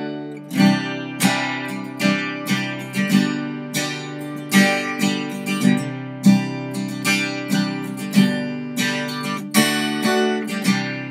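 Guitar strummed in a steady rhythm, about two strums a second, playing the C add9, E minor, C, D chord progression.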